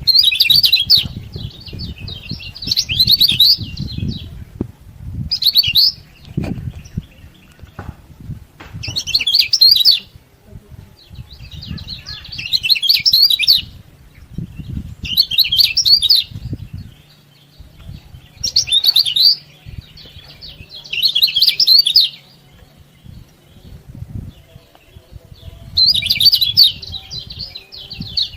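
Kecial kuning (a white-eye) giving repeated bursts of rapid, high 'ciak-ciak' chattering, about nine bursts each a second or so long, every two to three seconds. This is a bird in full voice ('gacor'), used as a master call to stir other kecial to sing.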